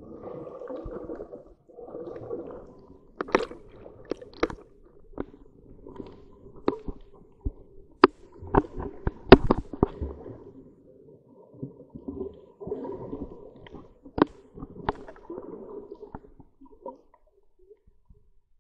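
Muffled underwater sound picked up by a submerged camera: stretches of low noise with many sharp clicks scattered through. It fades out near the end.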